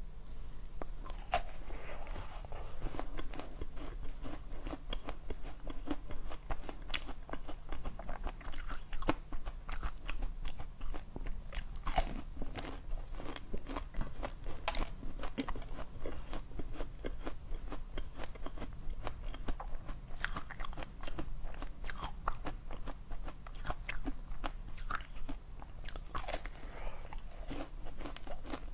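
Close-miked biting and chewing of frozen pink-coated dessert cubes: crisp, irregular crunches and crackles throughout as the coating and icy inside break between the teeth.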